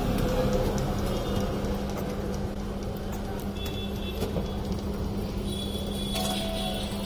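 Steady low background rumble with a constant low hum, and a few faint high tones in the second half.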